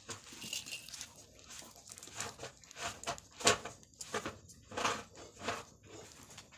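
Twig fire being kindled with a burning plastic snack packet in a shallow metal pan, crackling and popping irregularly, with knocks as sticks are pushed into the flames. The loudest pop comes about halfway through.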